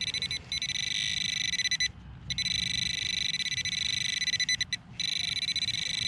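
Handheld metal-detecting pinpointer alarming with a high, fast-pulsing buzz as its probe is held over metal in the dug hole, the target here being a small stretched-out paper clip. The buzz stops and restarts a few times.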